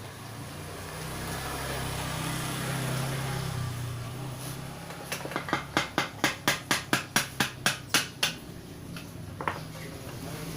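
Rapid series of about a dozen hammer blows on metal, roughly four a second, then two single knocks, during work on a truck transmission. A low steady hum comes before the blows.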